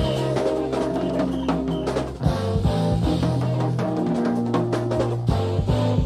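Live jazz-fusion band playing, with the drum kit and long electric bass notes to the fore, heard from a cassette tape recording.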